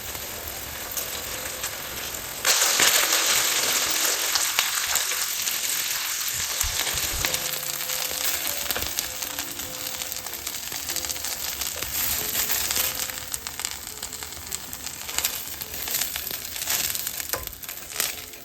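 Zucchini and corn fritters frying in olive oil in a pan, a steady sizzle. It gets suddenly louder about two and a half seconds in, then slowly dies down.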